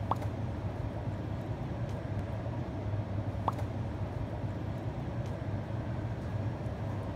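Steady low hum of city street traffic. Two short rising chirps cut through it, one right at the start and one about three and a half seconds in.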